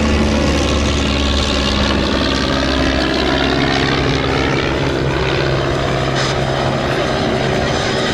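De Havilland Tiger Moth biplanes flying past, their four-cylinder Gipsy Major engines and propellers droning steadily. The engine note slowly shifts in pitch as they pass.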